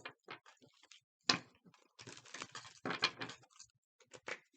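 Tarot cards being shuffled and handled: soft clicks and taps, one sharper tap about a second in, then a stretch of papery riffling.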